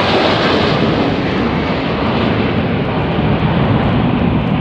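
Roar of the Frecce Tricolori jet formation (Aermacchi MB-339 trainers) flying overhead trailing tricolour smoke. The high-pitched hiss fades away while the deep rumble stays loud.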